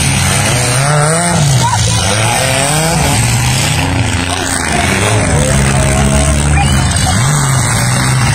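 Engines of demolition derby cars revving, the pitch repeatedly rising and falling as the cars accelerate and back off in the arena.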